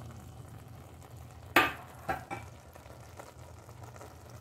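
A sharp metal clink against a stainless steel cooking pot, followed about half a second later by two lighter knocks, over a steady low hum.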